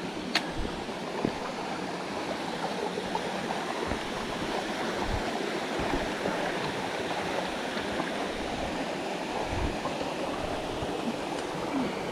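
Small mountain waterfall pouring into a pool, a steady rush of falling water with one brief click about half a second in.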